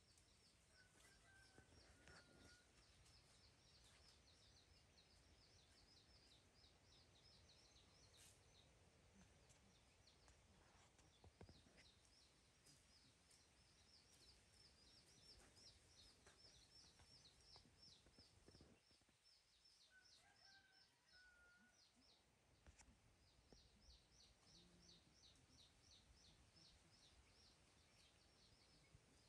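Near silence: faint outdoor background with a fast, high chirping that runs on and off, breaking off for a few seconds past the middle, and a short two-note call heard twice, about a second in and again about twenty seconds in.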